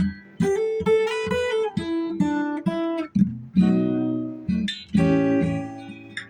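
Acoustic guitar strumming a chord progression.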